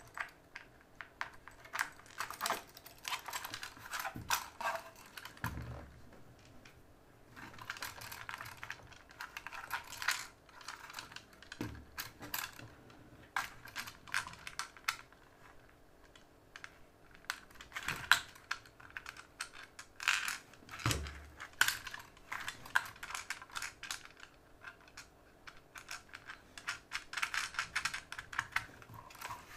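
Irregular small clicks and taps of hard plastic parts, screws and nuts being handled and fitted by hand, over a faint steady hum.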